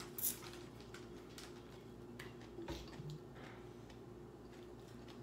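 Quiet eating sounds: chewing with scattered small clicks and crunches, the loudest just after the start, over a faint steady hum.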